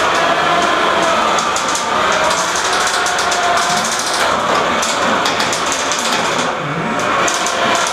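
A fairyweight combat robot's spinning weapon whining, its pitch wavering up and down, over a steady noisy din with scattered sharp clicks.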